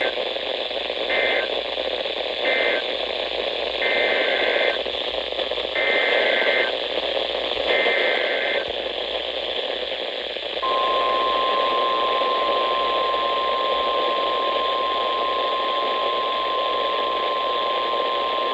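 NOAA Weather Radio alert signalling heard through reception static: about five short digital SAME data bursts over the first nine seconds, then the steady one-pitch warning alarm tone starting about ten seconds in, which announces a new warning.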